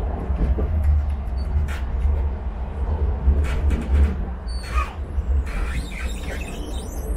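Sheffield Supertram tram running along the track, heard from inside the passenger saloon: a steady low rumble with occasional light clicks and rattles.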